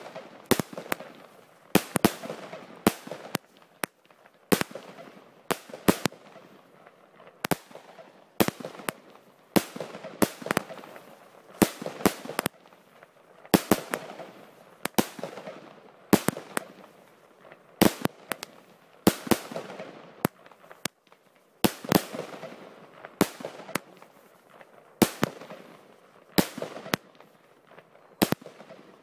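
Fireworks battery (cake) firing shot after shot, a sharp bang about once a second, often in close pairs as each shell launches and bursts, with hiss and crackle between the reports.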